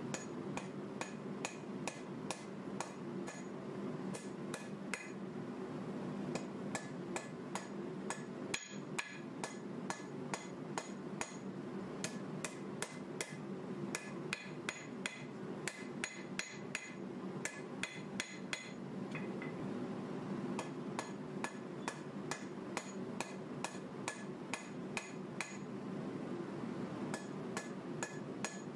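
Hand hammer striking a red-hot 1095 steel knife blank on an anvil to draw out the blade, about two to three blows a second, each one ringing. A steady low hum runs underneath, with a short pause in the hammering about a third of the way in.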